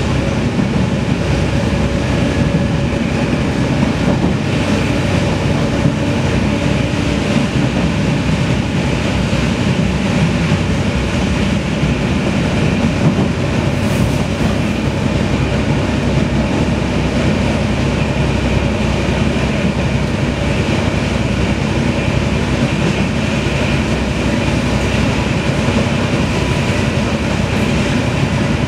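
Interior of a Taiwan Railways Fu-Hsing class passenger coach running along the line: the steady rumble of the wheels on the rails, heard from inside the cabin.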